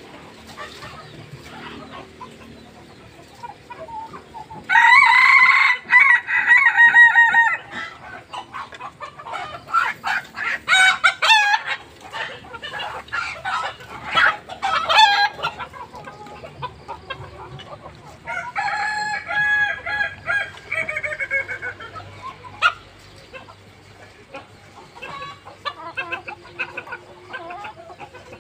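Kukuak balenggek (kokok balenggek) roosters crowing, the West Sumatran breed kept for its long crow of many stepped syllables. A loud crow comes about five seconds in, followed by a run of short rapid notes until about fifteen seconds. Another crow that falls in pitch at its end comes near twenty seconds, and fainter crowing follows near the end.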